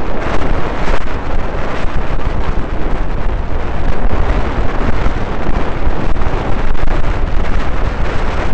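Wind buffeting the microphone of a camera on a mountain bike rolling down a gravel road, with tyres crunching over the gravel and many small rattles and knocks from the bike.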